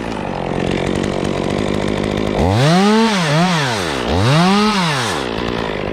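Two-stroke chainsaw running at a steady speed, then opened up into a cut about two and a half seconds in, its engine pitch rising and falling three times as it works through the wood before settling back.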